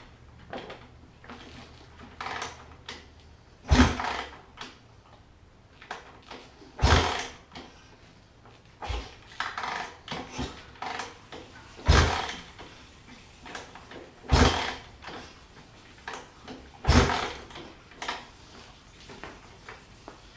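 A 2006 Suzuki RM-Z450 four-stroke single being kicked over repeatedly, about six hard strokes a few seconds apart with lighter clunks between, and the engine never catches. It will not fire because the cam chain tensioner was installed incorrectly and the valve timing has jumped.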